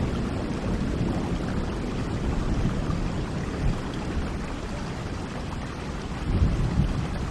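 Steady rain with low rumbling thunder underneath, the rumble swelling about six and a half seconds in.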